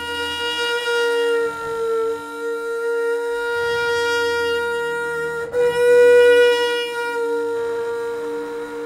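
Trumpet muted with a white plastic cup held in its bell, sustaining one long note. About five and a half seconds in, the note breaks and comes back louder, then thins out toward the end.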